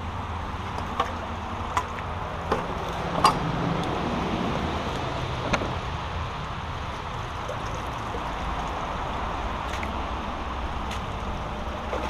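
Brook water flowing steadily, with a few short sharp knocks, the loudest about three seconds in.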